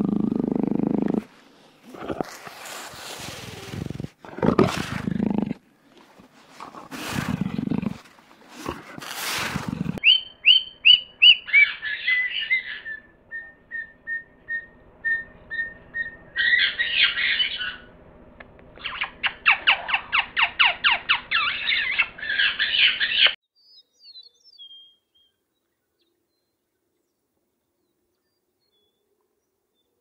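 Low growling and then several harsh, hissing snarls from a big cat. About ten seconds in these give way to lories calling: falling chirps, a repeated short note about three times a second, then bursts of rapid chattering that stop suddenly.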